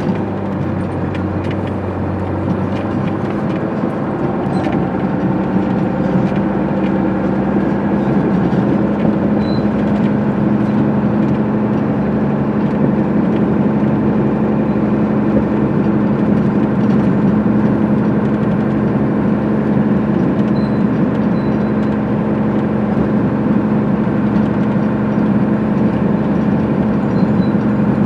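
Engine of an open off-road vehicle running steadily under way, heard from on board as a constant drone, with light rattles and clicks from the bouncing vehicle. It gets a little louder about four seconds in.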